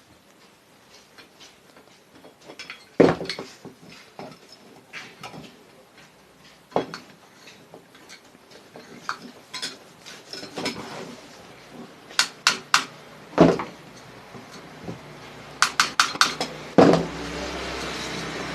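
Metal parts and tools of a sewing machine motor being handled: separate knocks and sharp clinks, with quick runs of three and four ringing clinks a little after halfway. A steady hum starts near the end.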